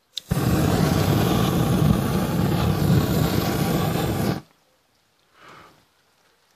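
A bag hung in a tree flaring up in flames: a loud, steady rushing noise that starts suddenly, lasts about four seconds, then cuts off abruptly.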